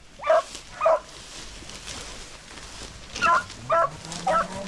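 Beagle hound baying on a rabbit hunt in short, repeated barks: two near the start, then three in a row from about three seconds in. A fainter, lower drawn-out tone rises underneath near the end.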